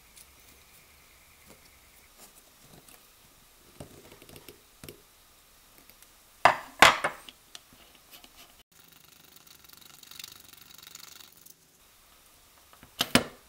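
Metal parts of a Stanley 803 hand drill handled during reassembly: light clicks and scrapes, two sharp knocks about halfway through, a stretch of soft rubbing, and two more sharp knocks near the end.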